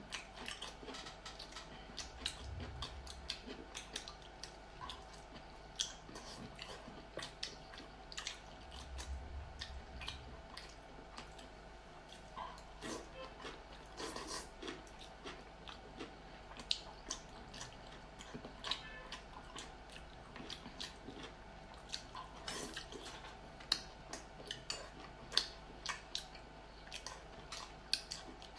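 Close-up eating sounds: chewing and wet mouth clicks as soft braised pork belly and rice are eaten, in an irregular stream of short clicks and smacks.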